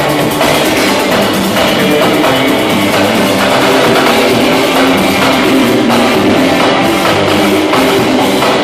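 Live rock band playing loud: drum kit and distorted electric guitars, with a bass line underneath, during a soundcheck.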